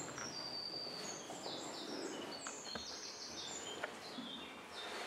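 A small bird singing a long run of short, high notes that step up and down in pitch, with a few faint clicks.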